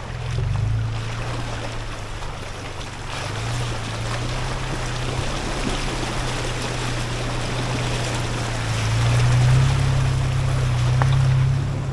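Nissan Xterra's engine running at low revs while crawling along an off-road trail, its hum rising in pitch and loudness about nine seconds in, under a steady rushing noise.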